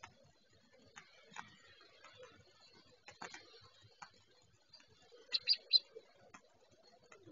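California quail calling with three short, high chirps in quick succession about five seconds in, over scattered faint ticks and clicks.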